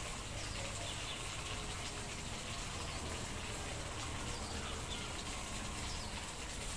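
Steady outdoor background noise with a low rumble, and a few faint, short, high bird chirps.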